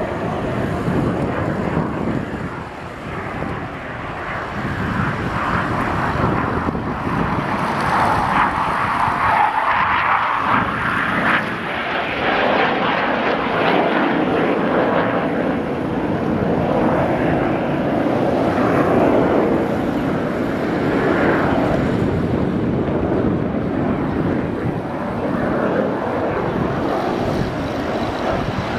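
Jet noise from a BAE Hawk's Adour turbofan as the jet flies manoeuvres overhead, a continuous rush that swells and fades in long waves as it passes.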